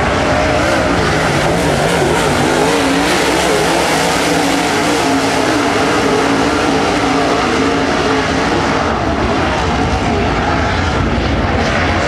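Super late model dirt-track race cars running hard, several V8 engines at once. Their pitch rises and falls as the cars power through the turns and down the straights.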